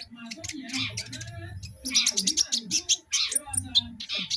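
Young kolibri ninja (sunbird) chirping and twittering: rapid, high, scratchy notes in quick runs, with background voices underneath.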